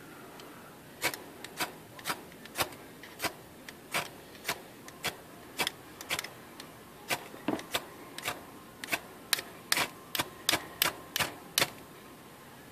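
Steel striker scraped down a magnesium fire-striker rod again and again to throw sparks onto tinder: about two dozen short, sharp scrapes, roughly two a second, starting about a second in and stopping near the end.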